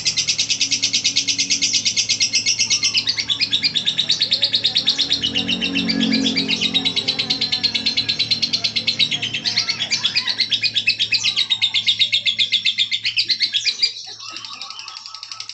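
Lovebird's ngekek: a long, unbroken, rapid high-pitched chattering trill that breaks off near the end.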